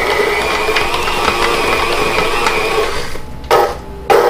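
Stand mixer with a flat paddle beater running at speed through stiff cookie dough, a steady motor and gear whir that stops about three seconds in. Two short knocks follow near the end.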